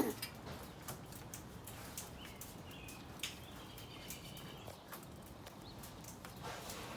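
Scattered light clicks and taps of hand work on a metal downspout elbow and its old screws, with a bird chirping faintly in the background.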